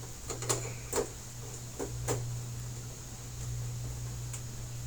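A few light clicks and taps of plastic being handled as the TV's back cover is worked loose, over a steady low hum.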